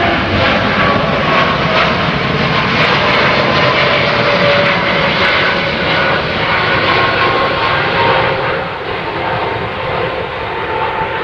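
Boeing 787 Dreamliner's twin turbofan engines at climb power after takeoff: a loud, steady jet noise with faint tones slowly drifting in pitch, easing off after about eight seconds as the airliner climbs away.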